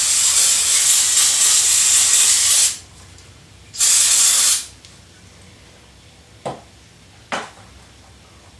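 Aerosol can of brake cleaner spraying in two hissing bursts, a long one and then a short one about a second later, followed by two short knocks.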